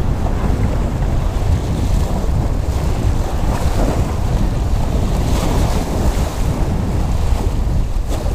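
Wind buffeting the microphone, with small waves breaking and washing over jetty rocks in a few hissing surges.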